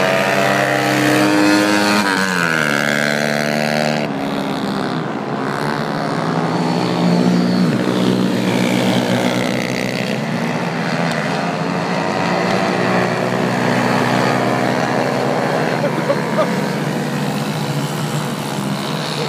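Several pit bikes racing, their small single-cylinder engines revving up and down through the gears and overlapping one another, with a sharp drop in pitch about two seconds in as one backs off.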